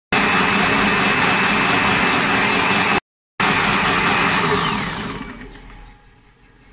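Cecotec Mambo kitchen robot's blade running at full speed (speed 10), blending chopped vegetables into gazpacho in its stainless steel jug: a loud, steady whirring with a thin whine that winds down over the last second or two as the programme ends. Two faint short beeps about a second apart follow as it finishes.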